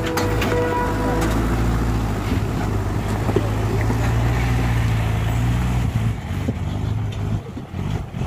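Mahindra Arjun 605 tractor's diesel engine running steadily as it pulls a trailer heavily loaded with sugarcane, growing fainter in the last couple of seconds as it moves away.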